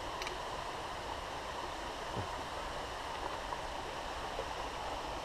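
Small creek's water running steadily over rocks.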